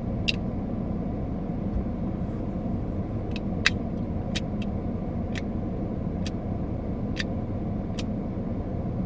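Sharp metallic clicks of a Sheffield multitool's folding blades and tools as it is folded and worked, one just after the start and then about one a second from three seconds in, over a steady low rumble.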